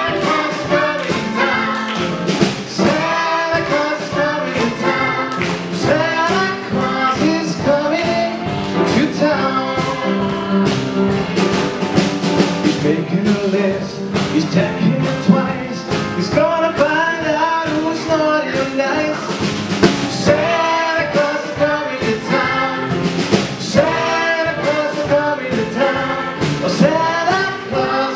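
Music: a song with singing over a steady drum beat.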